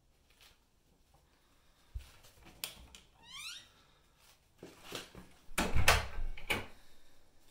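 Knocks and thumps of a cat pawing and bumping against a glass patio door and its frame: one thump about two seconds in, then a cluster of sharper knocks near the end, loudest about six seconds in. A short rising squeak comes about three seconds in.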